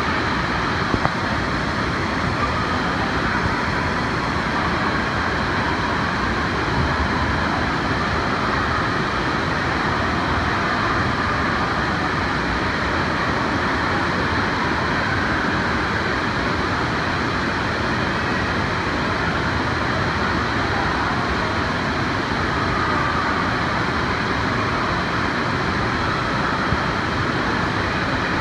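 Steady, even din of an indoor water park pool hall: running and splashing water and crowd noise blended into one constant roar.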